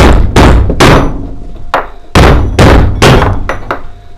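A small hammer striking metal, knocking a wheel stud in a Ford Transit's rear wheel hub. There are about eight sharp strikes, each ringing briefly, roughly two a second with a short pause near the middle.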